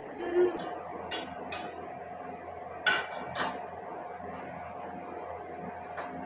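A metal spoon clinking and scraping against a steel kadai on a gas stove: about five separate sharp clinks spread out, over a steady hum.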